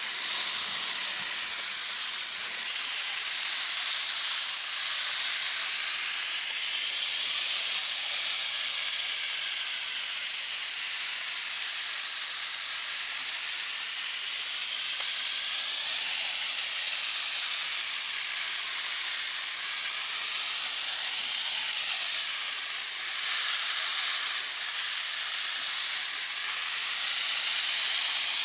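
Paint spray gun spraying stain in a steady, loud hiss, its tone swelling and dipping every few seconds. It has just been cleaned out with water and is spraying well again.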